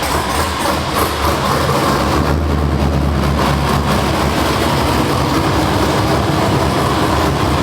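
LS V8 engine on Holley Terminator X fuel injection running just after a cold start, settling into a steady idle about a second in. This is a test of the cold-start tune, to see whether the engine stays running.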